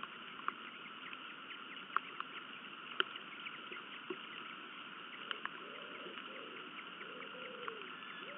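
Steady rain hiss with drops pattering and ticking close to the nest camera's microphone, a few single drop hits much louder than the rest.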